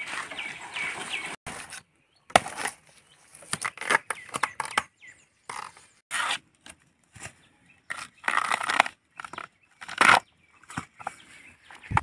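A large knife chopping and splitting a palm's soft fibrous stem: a series of short, separate cutting and tearing strokes with gaps between them.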